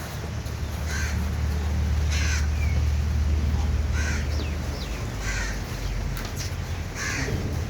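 A bird calling with short harsh calls, five of them, roughly one every second and a half, over a steady low hum.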